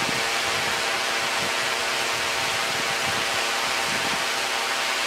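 Multirotor drone's motors and propellers running steadily while it hovers, heard from on board: an even whirring hum with a strong hiss and no change in pitch.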